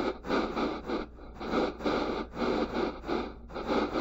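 Speech-shaped noise, a hiss with the long-term spectrum of speech, played back with its loudness following the intensity contour of a string of SPIN sentences. It swells and drops in uneven, syllable-like bursts several times a second, with no voice or pitch in it.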